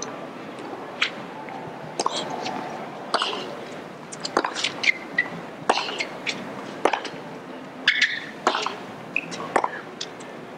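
Tennis rally on a hard court: a string of sharp racket-on-ball hits and ball bounces, about one a second, over a steady low crowd murmur.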